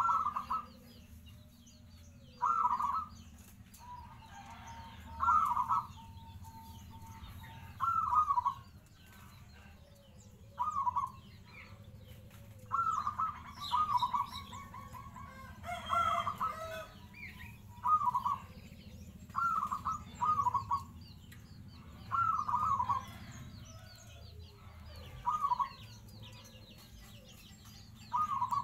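Local-strain zebra dove (perkutut) singing: short, bright cooing phrases repeated about every two to three seconds. Faint chirps of other birds sound in the background.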